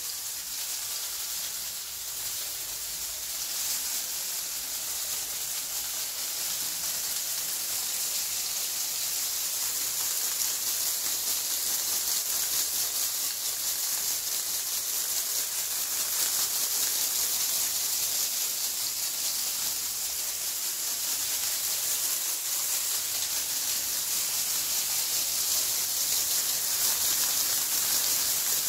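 Bundle of dried palm leaves swished and shaken, a steady dry rustling hiss that slowly grows louder. The last wind chime tones die away just at the start.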